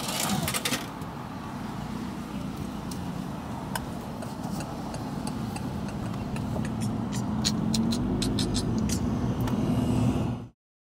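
A car running, heard from inside the cabin, its engine and road noise slowly growing louder as it pulls away and picks up speed, with a few light clicks. The sound cuts off abruptly near the end.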